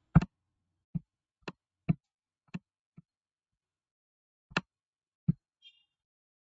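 Computer mouse clicking about eight times at irregular intervals, with silence between clicks, as a text box is dragged and resized on a form. The loudest click comes right at the start.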